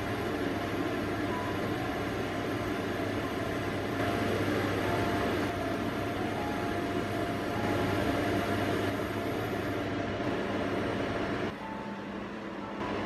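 A saucepan of soup heating on a gas burner over high heat, a steady noise that turns quieter near the end as the flame is turned down.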